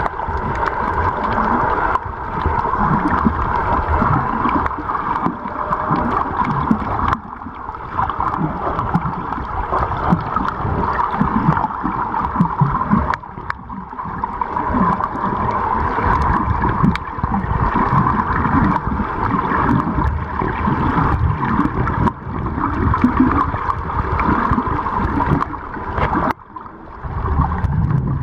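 Muffled underwater sound picked up by a submerged camera: steady water noise with gurgling and uneven low rumbling, and a few faint sharp clicks.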